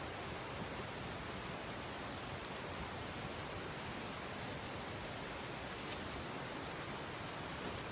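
Wood campfire burning, a few faint pops and crackles about six seconds in and near the end over a steady rushing noise.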